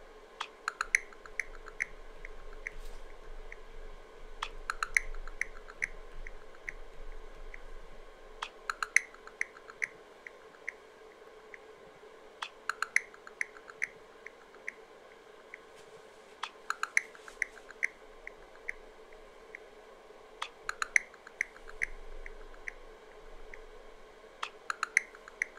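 ChatGPT voice mode's working sound while it processes a request: a soft burst of quick, pitched electronic ticks lasting about two seconds, repeating every four seconds, over a faint steady hum.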